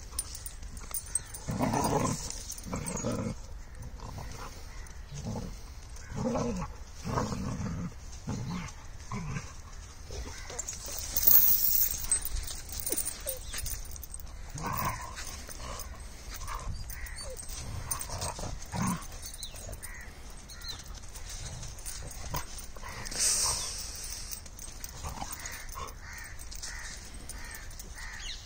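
Dogs barking in short, irregular bursts, thickest in the first ten seconds, with more around fifteen to nineteen seconds in.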